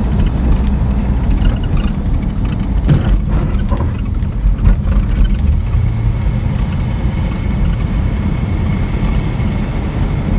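Classic Ford Thunderbird V8 engine running while the car drives, with steady engine and road noise and a few light knocks about three to five seconds in. The engine is still a little cold and sounds, to the owner, like it has a bit of a camshaft in it.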